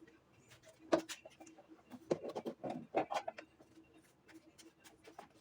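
Irregular clicks, taps and knocks of hands working with materials, busiest around the middle, over a faint steady hum.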